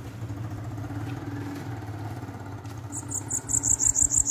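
A caged bananaquit (sibite) sings a fast, high-pitched trill of about nine notes a second, starting about three seconds in and the loudest sound here. Under it runs a steady low hum of an idling engine.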